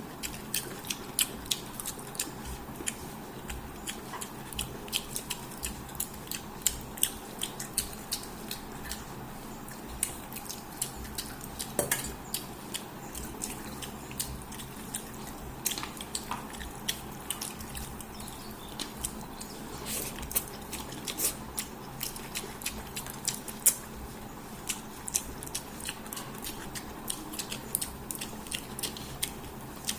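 Close-up eating sounds: fish head and rice being chewed and crunched, with many irregular sharp clicks and smacks.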